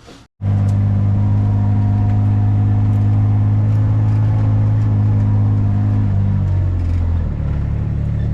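Engine running steadily at a fairly high speed, starting abruptly about half a second in, then easing down in pitch around six to seven seconds in.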